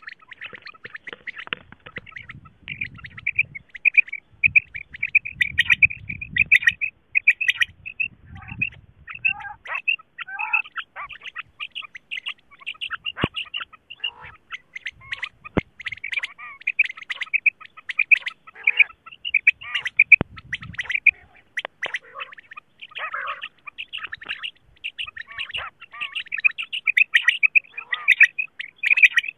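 Female common quail (batair) calling, a fast, almost continuous run of short high chirping notes, the kind of call played to lure quail for hunting. There is some low rumbling in the first ten seconds and a few sharp clicks.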